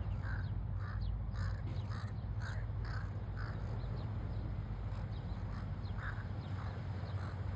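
Crows cawing while mobbing another bird: a quick run of short caws about twice a second for the first few seconds, then a few scattered caws near the end, over a steady low rumble.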